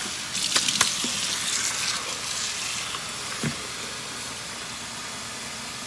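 Rinse water pouring out through the strainer holes of a plastic rice-washing bowl into a stainless-steel sink: a steady hiss that slowly fades. There are two light knocks near the start.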